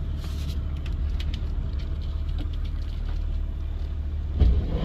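BMW E36's engine running, a steady low rumble heard from inside the cabin, with a louder low surge near the end.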